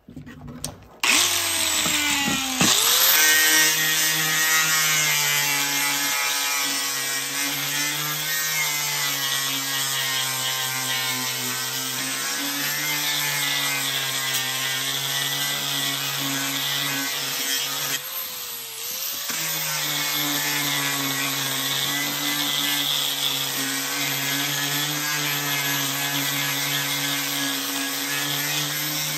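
Electric angle grinder with a sanding disc starting up about a second in and spinning up, then running steadily as it sands a pallet-wood board, its whine wavering slightly under load. The pitch dips briefly and recovers about two-thirds of the way through.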